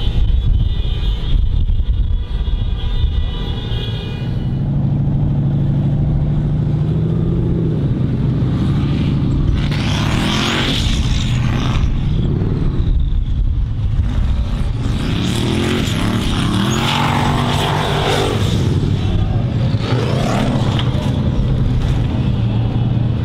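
Off-road racing buggy's engine running loud under hard throttle, its revs rising and falling in several bursts as it climbs a steep dirt slope.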